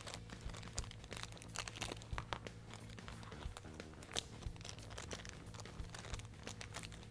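Small clear plastic zip-lock parts bag crinkling in the fingers as it is handled and opened, with irregular sharp crackles throughout.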